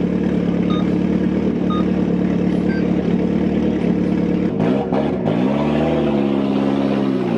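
Ford Escort RS Cosworth's turbocharged four-cylinder idling, then blipped a few times about halfway through and held at higher revs. Short beeps sound about once a second in the first three seconds, the last one higher in pitch.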